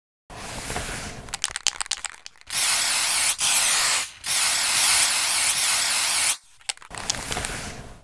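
Aerosol spray-paint can sound effect: some clicking rattles, then two long loud hisses of spray with a short break between them, and a shorter hiss with clicks near the end.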